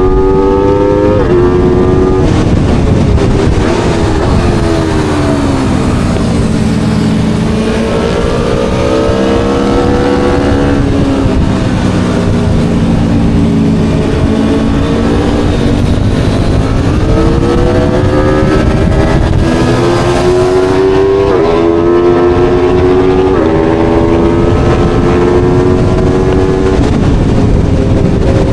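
Aprilia Tuono V4's V4 engine being ridden hard on track. Its pitch falls over several seconds as the bike slows for corners, then climbs again under acceleration. Near the end the pitch rises in quick steps as it upshifts through the gears.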